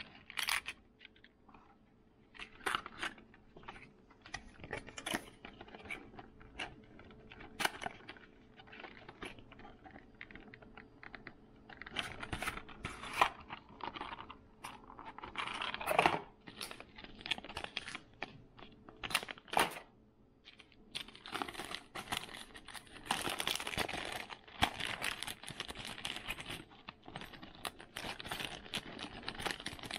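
Plastic packaging being handled and torn open: crinkling and tearing with scattered clicks and taps, busier in the second half.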